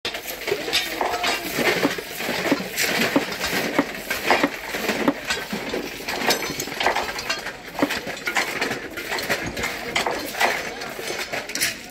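Steel hand tools of a railway track gang clinking and scraping on crushed-stone ballast in many irregular strokes.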